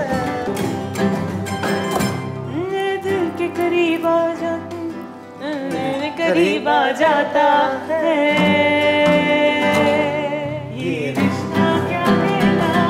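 A woman singing in fado style, holding long notes with a wide vibrato, over strummed and plucked nylon-string acoustic guitars. The music eases off briefly about five seconds in, then swells again.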